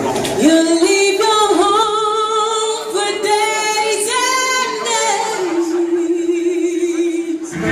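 A woman singing unaccompanied, a soul vocal line with wavering pitch that ends on a long held note; the full band comes in right at the end.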